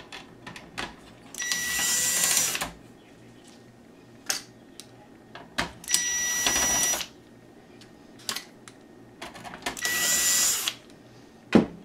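Cordless electric screwdriver running in three short bursts of about a second each, a steady motor whine, as it backs out three screws. Small clicks come between the bursts.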